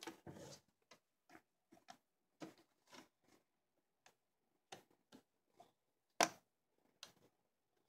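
Faint, scattered clicks and taps of hands handling the plastic housing and panels of a Brother ScanNCut CM350 cutting machine, with one sharper click about six seconds in.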